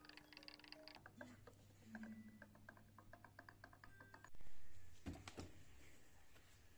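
Light, quick mechanical ticking and clicking from an Epson EcoTank printer being refilled from an Epson 104 ink bottle, over a low steady hum. A louder knock comes about four and a half seconds in.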